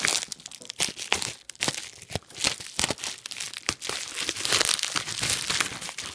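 Packing material in a shipping box crumpled and rustled by hand, a dense run of irregular crinkles and crackles.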